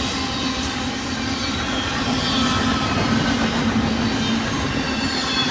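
Double-stack intermodal train's container-laden well cars rolling past at speed: a steady rumble and rattle of steel wheels on the rails, growing a little louder about two seconds in.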